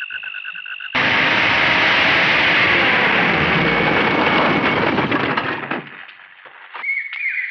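Frogs croaking for about a second, then an abrupt switch to a jeep's engine running with a loud, deep rushing noise that holds for about five seconds and dies away.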